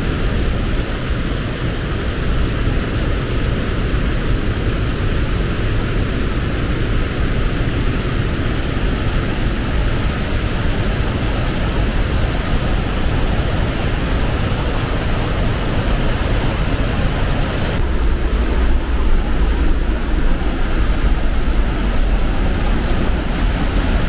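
Steady, loud roar of the Iguaçu Falls' plunging water, with no pitch to it. About eighteen seconds in it turns to a deeper, heavier rumble.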